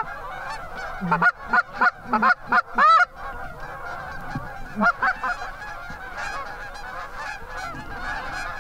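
A large flock of Canada geese honking continuously overhead as it circles in. A quick run of loud, close honks comes about one to three seconds in, and a couple more around the middle.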